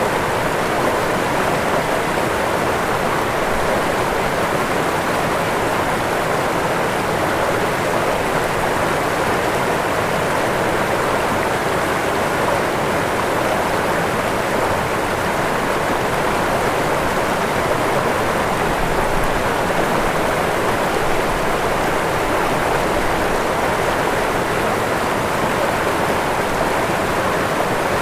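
Waterfall: water rushing and splashing in a steady, even roar, with no change throughout.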